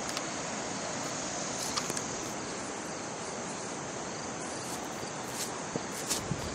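Insects chirring steadily in a high, even band over a constant broad hiss, with a few footsteps and light clicks near the end.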